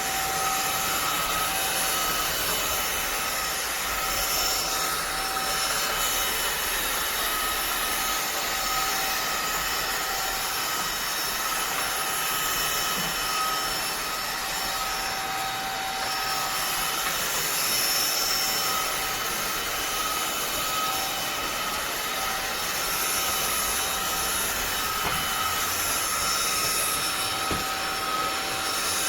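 INTETURE cordless stick vacuum cleaner running steadily: a rush of air with a high motor whine made of several steady tones that waver slightly.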